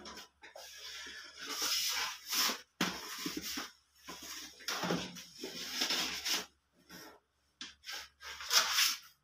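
Metal baking trays of pandesal dough scraping and sliding across the shelves of a deck oven as they are pushed with a long wooden peel, in a series of scrapes with short pauses; the loudest scrape comes near the end.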